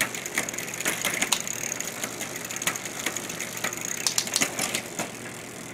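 Bicycle drivetrain turning on a stand while the rear derailleur shifts: irregular clicking of the chain moving across the cassette sprockets. The freshly adjusted derailleur is settling the chain into top gear.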